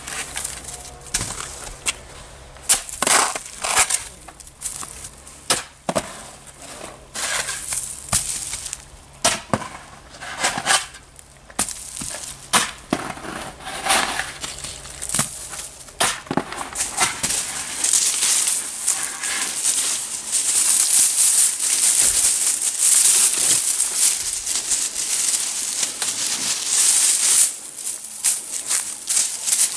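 A long-handled tool breaking up and scraping packed wet snow and ice off paving stones, in repeated sharp strikes and scrapes. From about eighteen seconds in, a steady dry rustling and crunching takes over as dry hydrangea flower heads are handled in the grass.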